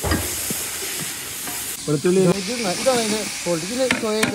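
Sliced onions and green capsicum sizzling in hot sunflower oil in a metal pot while a spatula stirs and scrapes them, with a knock at the start. A voice talks over it in the second half.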